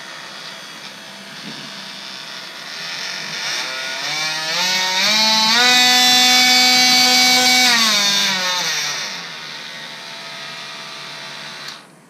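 Meec Tools 18V cordless oscillating multi-tool running unloaded on a fully charged, larger battery. It starts at low speed; a few seconds in its pitch rises in steps to a louder top speed, holds, then steps back down to low speed before it switches off near the end.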